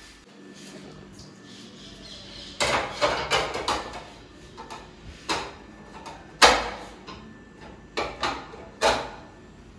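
Kitchen dishes and utensils clattering as they are handled. A quick run of knocks and clanks comes about two and a half seconds in, followed by single sharp clanks, the loudest about six and a half seconds in.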